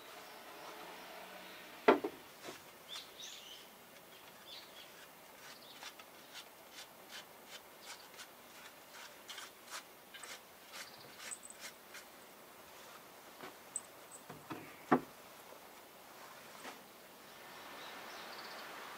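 Wooden birdhouse being knocked and tapped while the old moss nest is cleared out of it: two sharp wooden knocks, one about two seconds in and one near fifteen seconds, with a string of light clicking taps in between.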